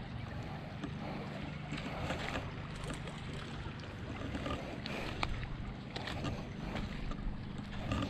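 A hooked Murray cod splashing at the surface as it is reeled in to the bank, with scattered sharp clicks over a steady low rumble.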